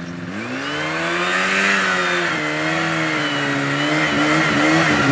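Two-stroke snowmobile engine running as the machine approaches: its pitch rises in the first second or so, then wavers with the throttle, and the sound grows steadily louder.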